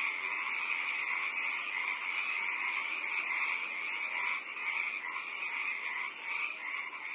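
A dense, steady chorus of calling animals, running on without a break.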